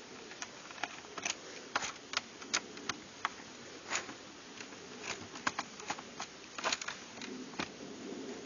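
Irregular small clicks and taps of a screwdriver working on a plastic keyboard case, as the case screws of an old Key-Tronic membrane keyboard are backed out.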